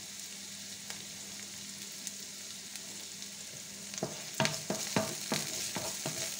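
Chopped onion and garlic sizzling in oil in a frying pan, a steady faint hiss. From about four seconds in, a wooden spoon stirs them, knocking and scraping against the pan in quick strokes.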